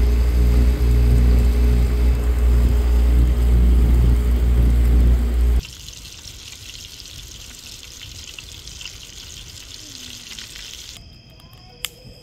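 A boat's outboard motor running steadily for about five and a half seconds, then a sudden cut to a quieter, steady sizzling hiss like food frying. Near the end, faint high insect chirring with a few clicks.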